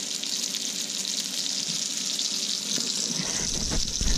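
Venison steak sizzling in olive oil and butter in a frying pan: a steady hiss with fine crackling. A low rumble and a few knocks join in about three seconds in.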